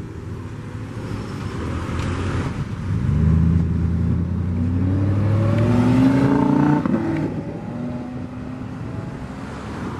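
Lamborghini Huracán's V10 engine accelerating past, its pitch rising from about three seconds in and loudest about six seconds in. Near seven seconds in the note drops sharply and then fades as the car pulls away.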